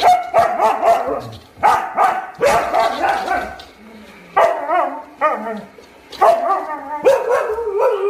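Siberian husky 'talking' angrily: about six separate outbursts of howl-like vocalizing and barks, their pitch bending up and down, with short pauses between them.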